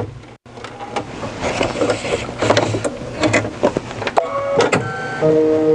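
Computerized embroidery machine stitching appliqué details through burlap and stabilizer: a fast, even needle clatter over a steady motor hum, with a few short held tones near the end.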